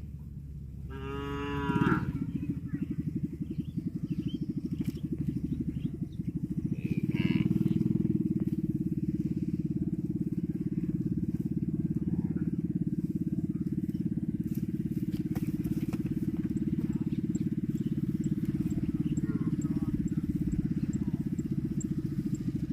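A cow moos once, about a second in, one short call. From about seven seconds a loud, steady low rumble sets in and carries on.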